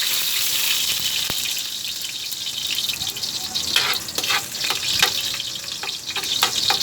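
Minced garlic sizzling in hot cooking oil in a wok, a dense hiss that thins after a couple of seconds into scattered crackles and spits.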